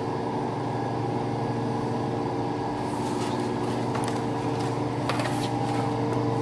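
Steady machinery hum in a large warehouse, with several constant tones. From about three seconds in, light knocks, clicks and rustles as jars and cartons are handled on a pallet shelf.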